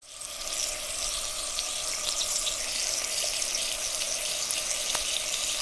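A steady rush of running water that swells in over the first half second, then holds at an even level.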